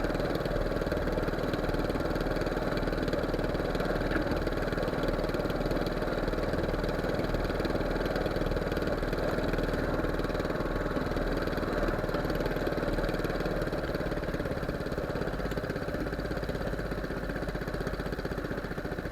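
Small fishing boat's engine running steadily at a constant speed.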